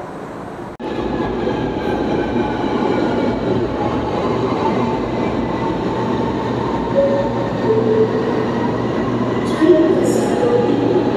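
rapidKL metro train running along a station platform: a steady rumble with a level electric whine over it, starting abruptly about a second in.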